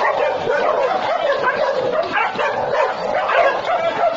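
Several dogs fighting: a continuous tangle of overlapping barks and yelps from more than one dog, with no break.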